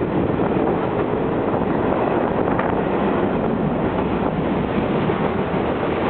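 Freight cars rolling past close by: a loud, steady rush and rumble of steel wheels on the rails, with faint scattered knocks.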